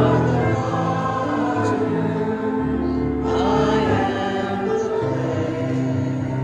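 Church offertory music: a choir singing over held accompanying chords.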